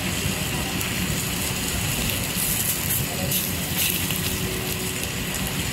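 Steady sizzling hiss of a hot flat griddle where fish is grilling on banana leaves, over a low background hum and faint chatter of a busy food court.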